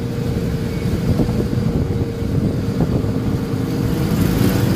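Tuk-tuk engine running as the three-wheeler drives along, heard from the passenger seat: a steady low engine drone with a constant hum above it, slowly getting louder.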